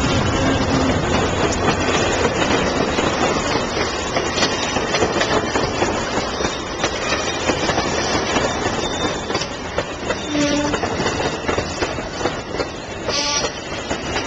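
Amtrak Superliner double-deck passenger cars rolling past close by, a steady loud running noise of steel wheels on the rails.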